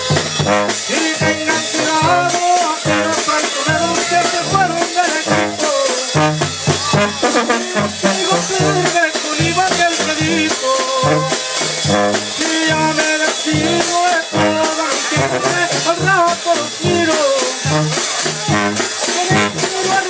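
Live tamborazo banda playing dance music: brass melody and tuba over a steady drumbeat.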